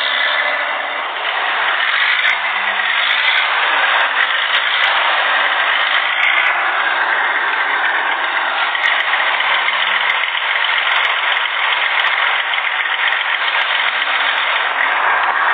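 Diesel bus engines idling, a steady rough running noise with no revving.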